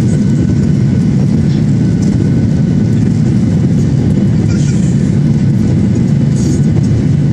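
Jet engines and rushing air heard inside the cabin of a Boeing 737 airliner climbing after takeoff: a loud, steady low rumble.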